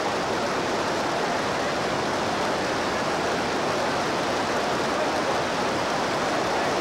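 Floodwater rushing steadily through a street in an even, unbroken roar of water.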